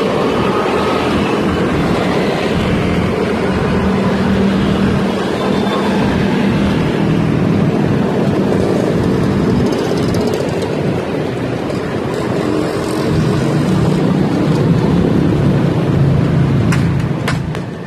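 Loud, steady street traffic heard from a small electric scooter on the move, with motorcycle and car engines running close by. A few sharp clicks come near the end.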